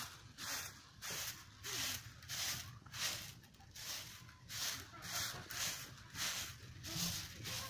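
A broom swept briskly over grass, swishing in regular strokes at about two a second.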